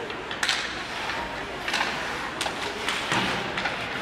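Ice hockey play echoing in an arena: skate blades scraping the ice and sticks clacking on the puck. Several sharp scrapes and knocks come at uneven intervals over a low background.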